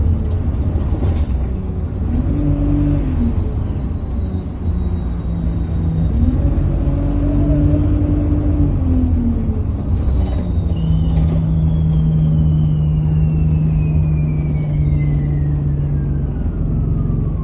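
Turbocharger whistle from an ADL Enviro200 bus's diesel engine, heard from inside the bus: a thin high whine that climbs and drops back about halfway through, then glides steadily down in pitch to the end. Under it, the engine drone rises and falls in steps over a constant low road rumble.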